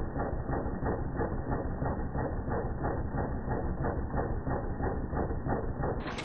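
Philips DP70 film projector mechanism running, its intermittent movement and gears clattering in a steady, even rhythm. The sound is slowed down with the slow-motion footage, so it comes out low and muffled.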